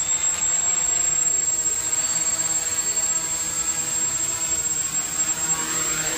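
Multirotor drone hovering low, its electric motors and propellers buzzing steadily, with the pitch wavering slightly. A steady high whine sits above the buzz.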